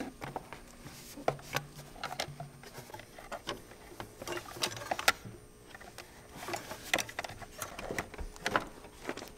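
Handling noise from a rubber intercooler hose and its coupler being pushed and twisted onto a metal intercooler pipe by gloved hands: irregular clicks, knocks and rubbing of rubber, glove and metal, with no engine running.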